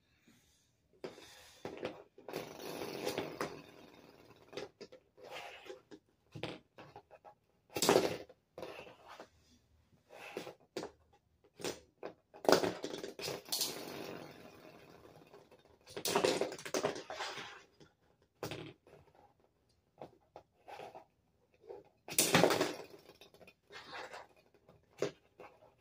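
Lego spinning tops and pieces being handled and launched, knocking and clattering in irregular bursts. The loudest come about 8, 13, 16 and 22 seconds in.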